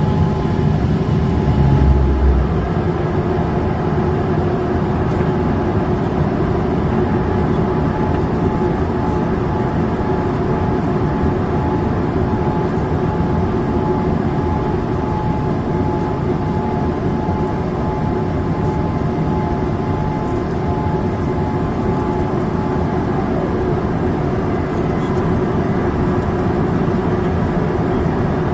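Steady cabin noise inside a Boeing 787-8 Dreamliner in flight: engine and airflow noise with a faint steady whine, and a brief low thump about two seconds in.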